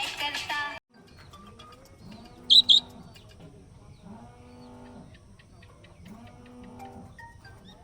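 Bird chirping, most likely a pet budgie: two sharp, high chirps close together about two and a half seconds in. They follow a sudden cut-off of louder sound just under a second in, over a low sound that repeats about every second and a half.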